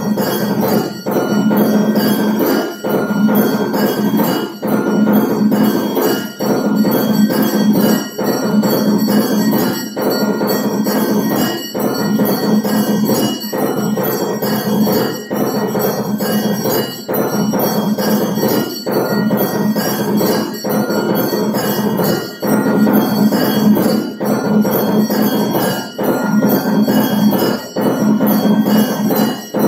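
Temple aarti: metal temple bells ringing continuously and densely, over a steady bed of dhol and nagada drumming.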